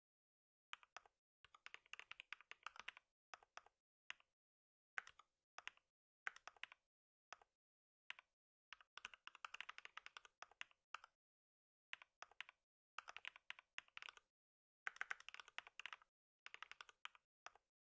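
Typing on a computer keyboard: quick runs of keystrokes in bursts of about a second, separated by short pauses.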